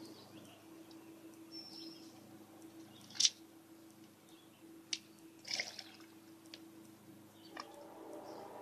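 A few sharp drips of liquid, the loudest about three seconds in, with two or three more around five seconds, over a steady low hum.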